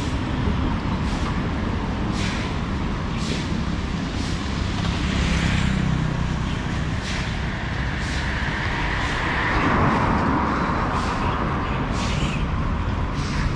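Road traffic: a steady rumble of engines, with light ticks about once a second. A louder vehicle swells up and passes about ten seconds in.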